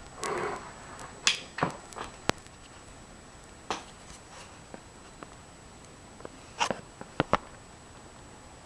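Handling noise from a handheld camera: about nine light clicks and knocks, scattered unevenly, with a faint steady high-pitched whine underneath.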